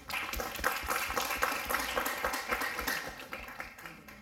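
A small audience clapping; the claps thin out and fade near the end.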